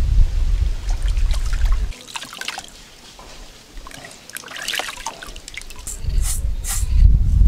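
Water trickling, dripping and sloshing in a plastic basin as potatoes are washed by hand, with small splashes and clicks throughout. A low rumble runs for the first two seconds and returns about six seconds in.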